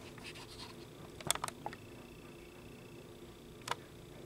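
Soft clicks and taps of a hand handling the camera: three close together about a second in and one more near the end, over a faint steady room hum.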